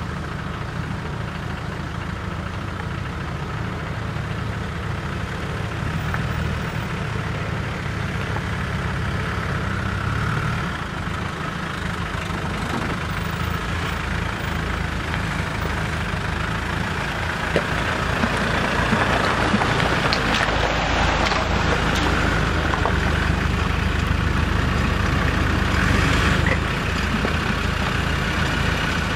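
Land Rover 4x4 engines running at low revs as the vehicles crawl down a rocky green lane one after another, with a steady low drone that shifts about a third of the way through. A few sharp clicks come in the second half.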